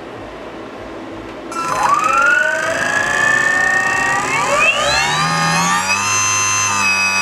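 Brushless motor on a dyno bench, driven by a Kontronik Kosmik 200 speed controller, spinning up as the throttle is brought up. A whine of several tones starts about a second and a half in, glides up in pitch in steps, and holds steady near the end.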